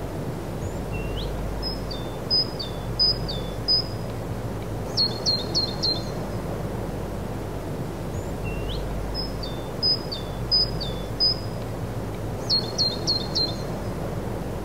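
A songbird singing the same short phrase twice, about seven seconds apart: several high chirping notes ending in a quick run of four. Under it is a steady outdoor background rumble.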